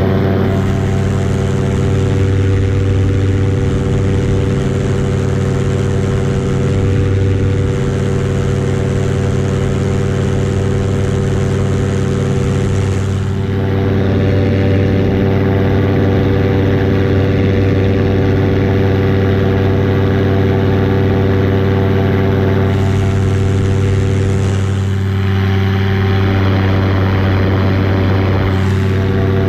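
Paramotor engine and propeller running at a steady cruise throttle, the pitch holding constant. Wind hiss rises over it for stretches and falls away again.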